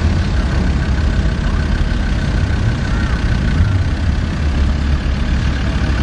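Land Rover Defender's engine running steadily at low revs as the 4x4 crawls slowly through deep mud.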